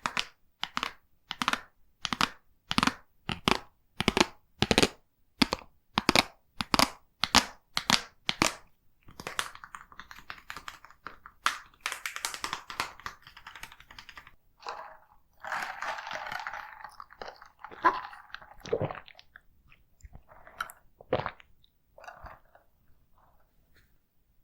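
Close-miked chewing of takoyaki, at a steady rhythm of about two chews a second for the first eight seconds or so. It then gives way to a looser, irregular mix of softer mouth sounds and rustling that dies away near the end.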